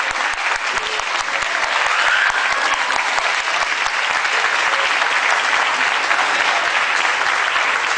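Audience applauding: many hands clapping in a dense, steady patter that holds throughout.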